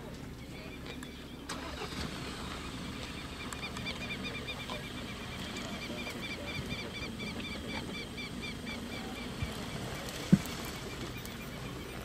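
A steady low rumble with a bird's rapid, evenly repeated high chirping through the middle. One sharp crack comes a little after ten seconds.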